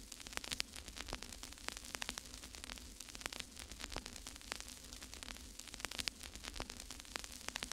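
Crackling static: a steady hiss and low hum with many irregular sharp clicks and pops.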